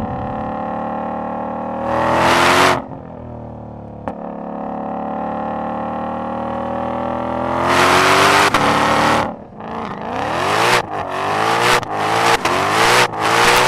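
High-performance car engine idling through its exhaust. It is revved briefly about two seconds in, then climbs in a longer rev near the middle, and ends with a quick string of about six sharp throttle blips.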